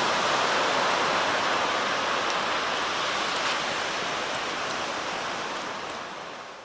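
Steady rushing noise of strong wind and surf on a beach, fading out near the end.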